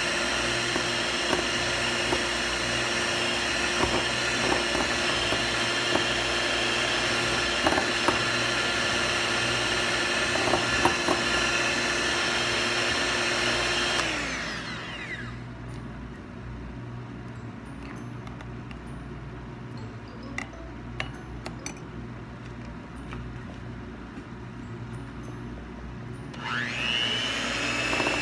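Handheld electric milk frother whisking instant coffee, sugar and hot water in a glass bowl: its small motor runs steadily with a high hum, winds down about halfway through, and after a quieter stretch with light clinks spins up again near the end.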